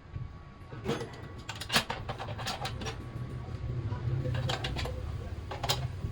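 Scattered clicks and knocks over a low steady hum, the loudest knock a little under two seconds in.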